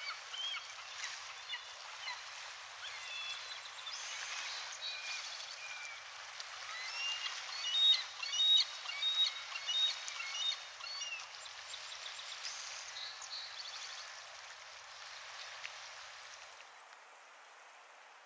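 Birds chirping and calling over a steady outdoor hiss, busiest and loudest about eight to eleven seconds in; the calls die away near the end, leaving only the soft hiss.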